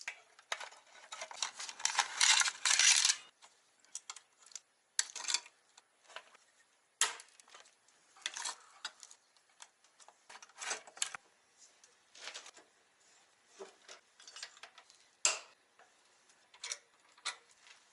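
Metal tools and parts clinking and clattering during the front-end disassembly of a Kawasaki Balius motorcycle: scattered sharp knocks, with a longer, louder clatter between one and three seconds in.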